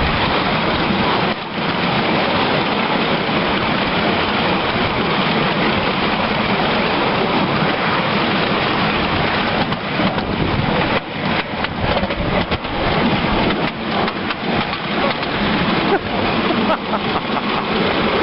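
Miniature live-steam locomotive under way, a steady loud rushing hiss of steam. In the second half, irregular clicks and knocks come through it.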